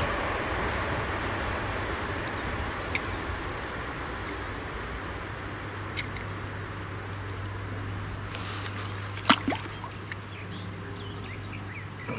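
A steady rushing noise that slowly fades, with small birds chirping and one sharp click about nine seconds in.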